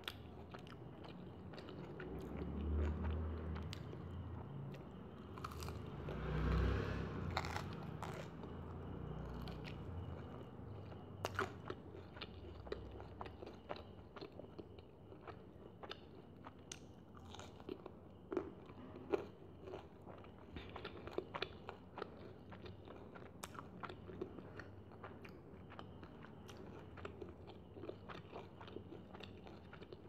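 Close-up eating sounds of chow mein and batter-fried chicken: crunchy bites into the fried batter and wet chewing, with many small crackles and mouth clicks. A couple of heavier low thumps come in the first several seconds.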